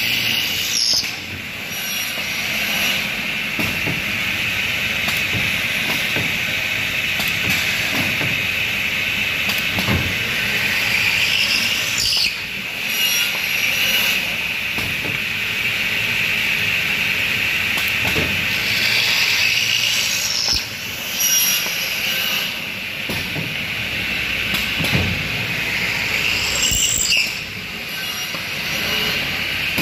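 RazorGage RazorOptimal optimizing saw system with its pocket-hole drilling station running under load: a steady high-pitched running tone from the down-cut saw, broken every few seconds by short clunks and hisses as the board is pushed, cut to length and drilled.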